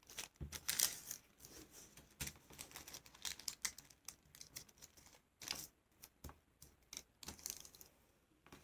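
Tissue paper rustling and crinkling as it is folded and its creases pressed flat on a wooden tabletop, in faint, irregular scratches and light taps.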